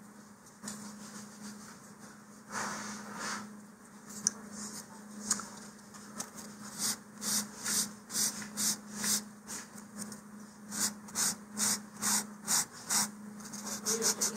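Sanding block rubbing along the edge of a wooden model-rocket fin to round it over, in quick back-and-forth strokes about two or three a second that come in two runs in the second half.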